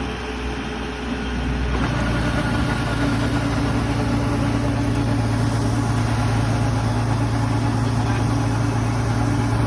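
An engine running steadily, getting a little louder and fuller about two seconds in.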